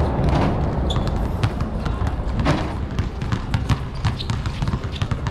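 Several basketballs bouncing irregularly on an outdoor court, a hard slap at each bounce, over a steady low rumble.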